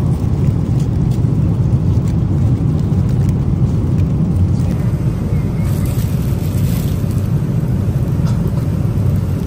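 Steady low rumble of a jet airliner cabin in flight: the even drone of engine and airflow noise.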